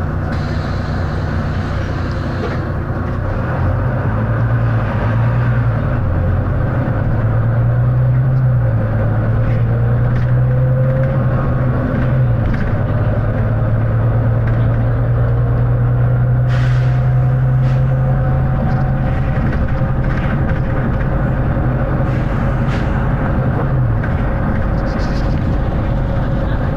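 Volvo B9TL double-decker bus's six-cylinder diesel engine, heard from on board, working hard with a loud low drone that steps up and down in pitch as it pulls through the gears and then holds steady, with a faint rising whine near the middle and a few rattles.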